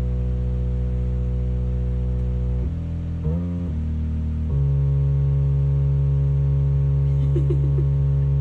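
Electronic keyboard sounding a steady cluster of held notes as a cat stands on the keys. The chord changes about three seconds in and again a second and a half later, becoming louder, as the cat's paws shift. A few short notes sound near the end.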